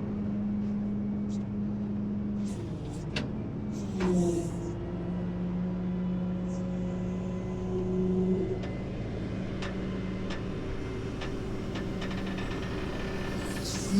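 Flatbed tow truck's engine running steadily, its hum dipping and shifting in pitch about four seconds in and again near eight seconds. A few sharp clicks sound over it.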